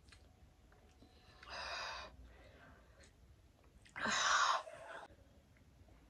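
A person takes two hard, breathy breaths through the mouth, a shorter one about 1.5 seconds in and a louder one about 4 seconds in. They are the breathing of someone suffering from the burn of an extremely hot chili chip.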